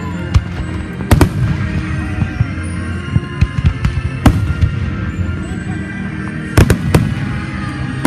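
Fireworks going off: sharp bangs of bursting shells at irregular intervals, with a pair about a second in, one near the middle and a quick run of three near the end, over a steady low rumble and some gliding whistles.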